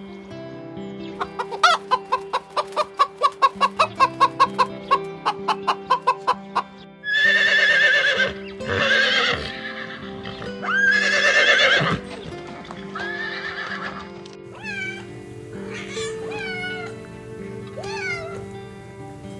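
Chickens clucking in a quick run of short calls over steady background music, then four loud, harsh animal calls about a second and a half each, then a string of short high calls that fall in pitch.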